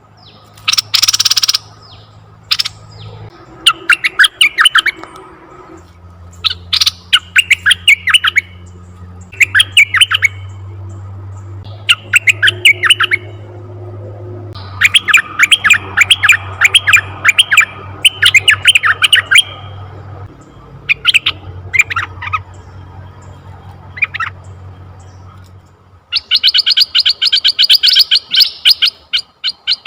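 Asian red-eyed bulbul calling in repeated short bursts of rapid, chattering notes, a phrase every second or two. There is a harsh squawk about a second in and a denser, faster chatter near the end, over a faint low hum.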